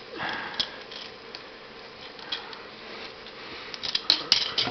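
A plastic transforming action figure being handled and moved: faint rubbing and light plastic clicks, with a quick run of sharper clicks about four seconds in.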